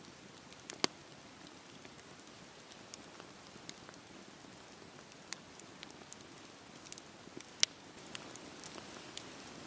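Campfire burning with a soft steady hiss and scattered sharp crackles and pops of the wood, the loudest about a second in and again near eight seconds in.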